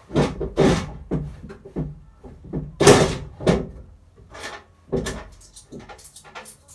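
A run of irregular knocks and clunks, about a dozen over several seconds, the loudest about three seconds in.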